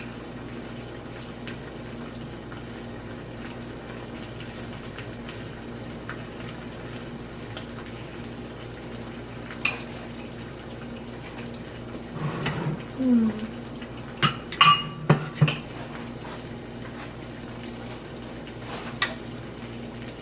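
Scattered clinks of a utensil against a plate or dish, with a cluster of several sharp clinks about three-quarters of the way through, over a steady low hum.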